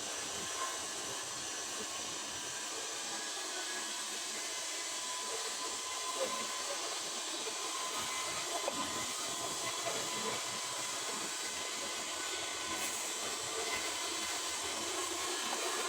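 A steady hiss with a faint steady tone running through it.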